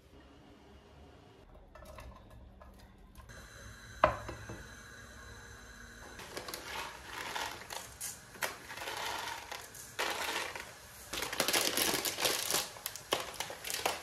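Uncooked baldo rice poured from a plastic bag into a stainless steel mesh strainer: grains rattling on the metal mesh in several spells, loudest near the end, with the bag crinkling. A single knock about four seconds in.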